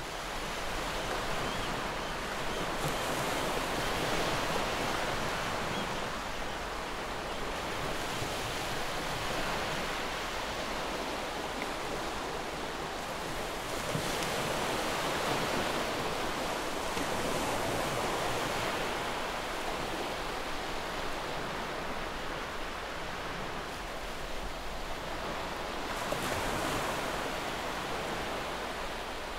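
Ambient recording of ocean surf: a steady rushing wash of waves that swells and ebbs every few seconds, with no music or voice.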